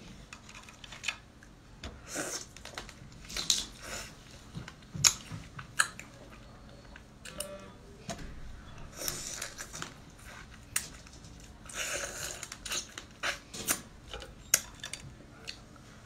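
Close-up eating sounds of a person biting and chewing pieces of marinated crab: irregular wet clicks and crunches of shell and flesh.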